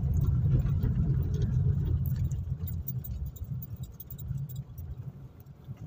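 Low engine and road rumble inside a moving car's cabin, with a few faint light ticks. The rumble dies away over the second half.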